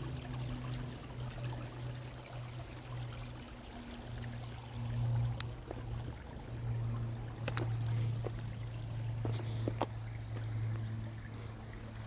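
Shallow creek trickling and babbling over rocks, with a steady low hum underneath. A few sharp clicks sound in the second half.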